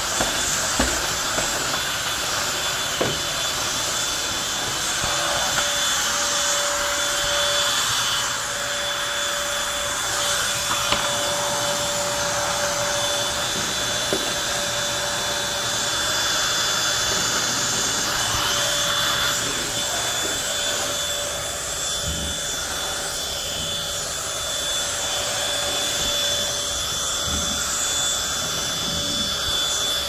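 Bissell 3-in-1 Turbo corded stick vacuum running steadily as its floor head is pushed over carpet, a constant motor whine over the suction noise, with a few small ticks.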